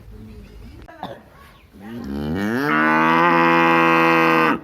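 A cow mooing: one long moo starting about two seconds in, rising in pitch at first and then held steady before it stops abruptly.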